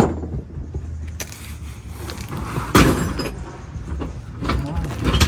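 Knocks and clunks of tools and equipment being packed away, a few at irregular intervals with the loudest about three seconds in, over a steady low hum.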